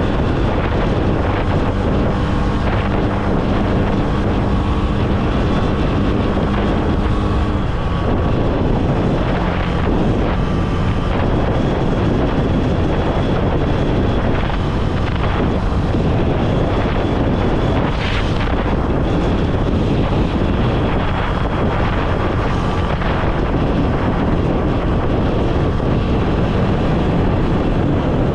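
Honda CB300F single-cylinder motorcycle engine running under way, with heavy wind rushing over the microphone. The engine note changes about a third of the way through, then carries on steadily under the wind.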